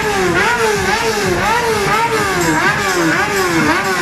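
Motorcycle engine revved in quick repeated throttle blips, its pitch dipping and rising again a little over twice a second without a break.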